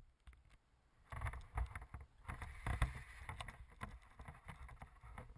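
Irregular muffled knocks and low rumbling from an RC boat's hull being handled, picked up by a camera mounted on its deck, with wind buffeting the microphone. The sounds start about a second in. No steady motor tone is heard.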